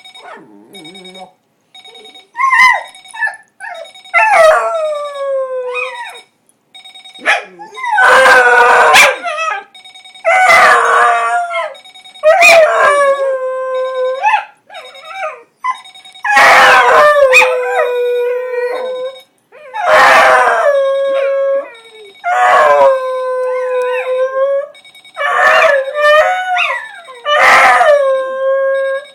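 Beagle howling over and over, each howl sliding down in pitch and ending on a long held note, about every two to three seconds. An alarm clock beeps steadily underneath.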